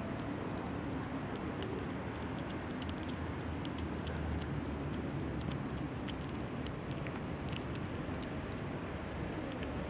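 A tabby kitten chewing and lapping wet cat food, many small quick clicks and smacks scattered throughout, over a steady low background rumble.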